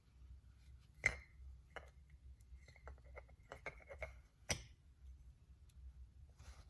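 Small metal clipper parts and tools being handled by hand, clicking and clinking on a hard surface: a sharp click about a second in, a run of light taps with a brief metallic ring, and another sharp click at about four and a half seconds.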